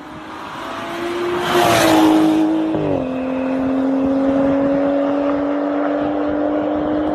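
Car with a loud modified exhaust accelerating hard past, loudest about two seconds in. The engine note drops with an upshift about a second later, then climbs steadily again as the car pulls away.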